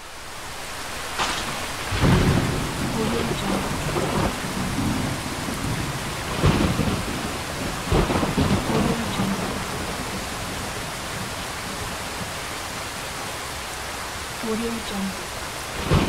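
Light rain falling steadily, with repeated rolls of thunder: a sharp crack about a second in, then deep rumbles peaking about two, six and a half and eight seconds in, and a softer roll near the end. The rain swells in from quiet over the first second or so.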